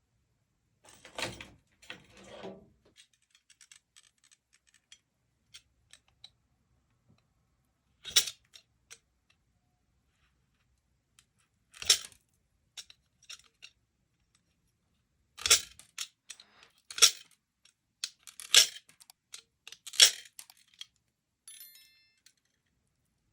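Small hard parts being handled on a work surface: a brief rustle, then a scattered series of sharp clicks and snaps, several of them loud, with a short faint scrape near the end.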